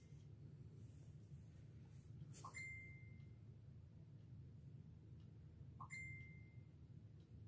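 Faint metallic click-and-ring twice, about 2.5 and 6 seconds in, from steel nail nippers snapping shut as they trim a toenail, over a quiet low room hum.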